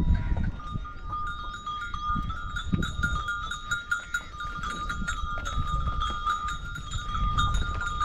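Neck bells on a moving herd of livestock ringing and clinking together without a break, over a low rumble.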